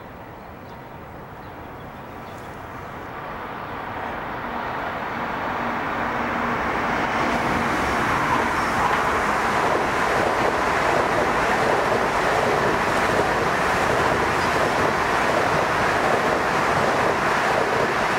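A multi-car Long Island Rail Road electric commuter train on the nearest track, its wheels and running gear growing steadily louder over the first eight seconds or so as it comes up close, then holding a loud, even rolling noise as it passes.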